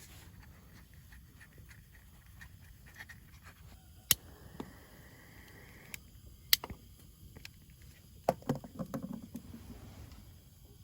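Two sharp clicks a couple of seconds apart, then a short burst of knocking and clatter about eight seconds in, like hard objects being handled and set down.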